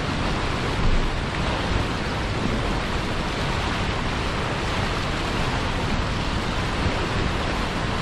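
Turbulent white water rushing and churning in the outflow below a weir, a steady, unbroken rush of noise.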